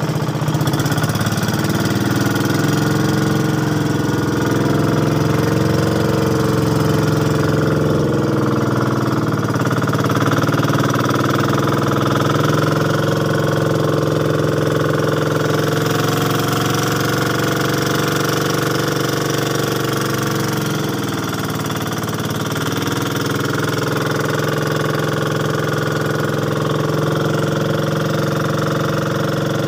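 Small motorboat's engine running steadily under way; its pitch wavers and dips briefly about three-quarters of the way through, then picks back up.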